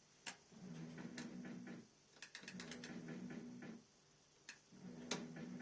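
Fruit machine reels spinning under their stepper motors: three short runs of a low mechanical buzz of about a second each, with sharp clicks as they start and stop.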